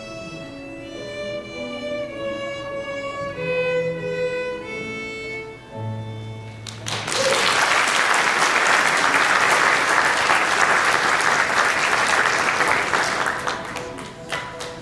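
Violin playing a slow melody, ending on a held low note about six and a half seconds in. Audience applause follows for about seven seconds and dies away near the end.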